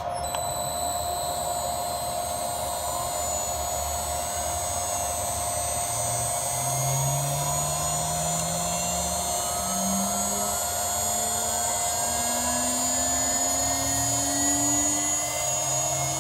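CNC router running on a test: a steady motor whine, with a second tone that rises slowly in pitch over the second half, typical of the stepper motors driving an axis.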